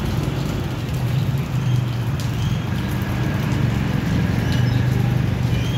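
A motor vehicle engine running close by, a steady low hum that wavers slightly.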